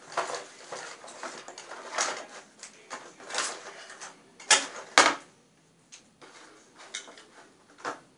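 Small plastic toy accessories being handled and rummaged through: rustling and clicking, with two sharp knocks about halfway through, then a few fainter clicks.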